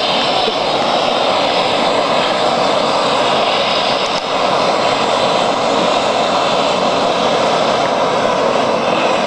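Homemade fireworks packed into a teddy bear burning with a steady, loud rushing hiss, without bangs.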